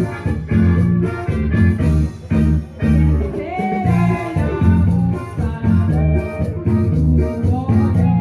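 Latin dance music in an instrumental passage between sung lines, with a steady pulsing bass beat under a melody line.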